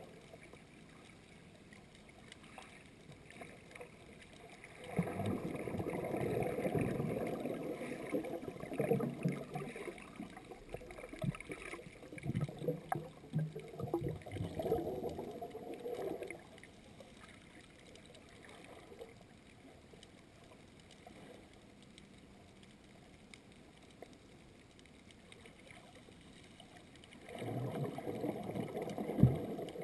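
Air bubbles from a diver's exhaled breath bubbling and gurgling underwater, heard through a camera's waterproof housing, in two long choppy spells: one from about five seconds in to about sixteen, another starting near the end. Between them only a faint, muffled underwater hiss.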